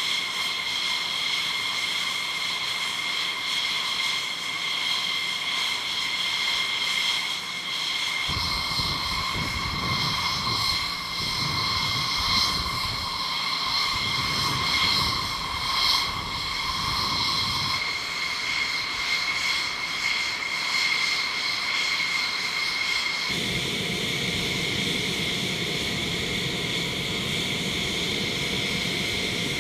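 Military jet engines running on the flight line: a steady high-pitched whine made of several held tones. A deeper rumble joins about eight seconds in, drops away briefly, and returns for the last part.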